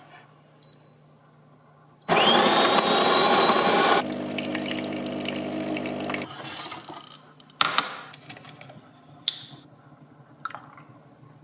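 Fully automatic espresso machine grinding coffee beans for about two seconds, a whine rising and then holding, then its pump humming steadily for about two seconds as coffee runs from the twin spout into the mug. A few clicks and knocks follow.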